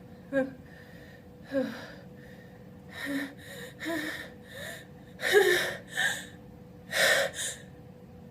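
A person's sharp, voiced gasping in-breaths, coming quicker as a sneeze builds. Then two loud, open sneezes about five and seven seconds in.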